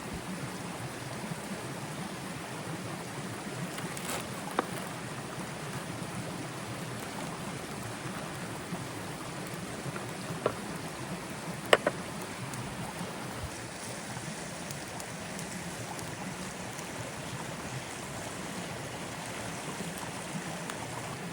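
Steady hiss of rain falling, broken by a few sharp clicks or knocks, the loudest a close pair a little past the middle.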